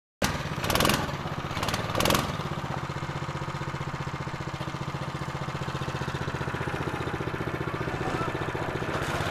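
Crosscart's small single-cylinder engine idling steadily, with a few brief louder bursts in the first two seconds.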